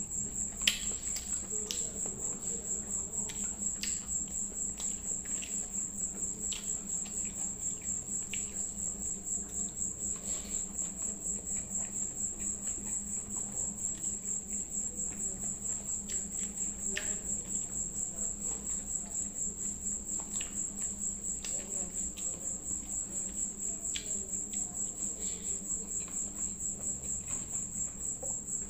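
Crickets chirping in a steady, high, rapidly pulsing trill throughout, over faint soft clicks and squelches of a hand mixing rice and gravy on a plate and of chewing.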